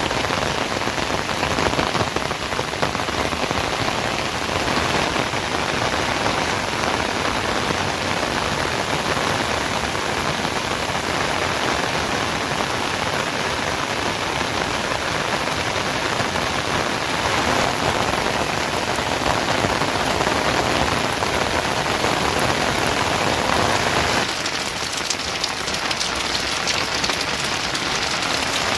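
Steady rain falling, an even hiss across the whole range; its lower part thins a little about 24 seconds in.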